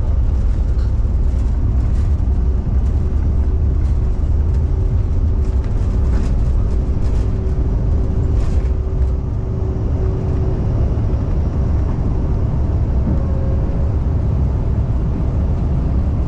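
Cabin noise of a CRJ-550 regional jet on its takeoff roll: a loud, steady rumble from the engines at takeoff power, with knocks from the wheels on the runway. About nine seconds in, as the jet lifts off, the knocks stop and the rumble eases slightly.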